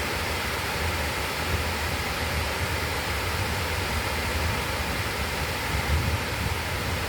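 River water flowing, a steady rushing noise with a low rumble underneath.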